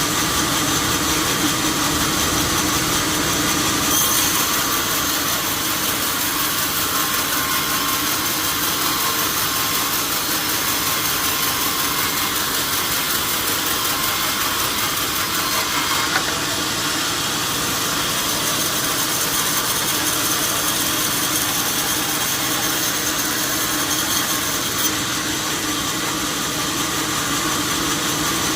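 Sawmill saw running steadily: a constant mechanical hum under a strong high hiss, without pauses.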